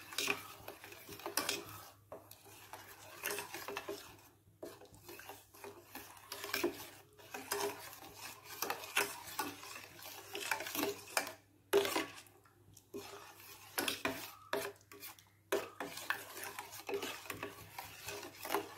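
Metal spoon stirring jaggery melting in water in a steel pot, scraping and clinking against the pot's sides and bottom in irregular strokes with short pauses; the jaggery is being dissolved into a syrup over the heat.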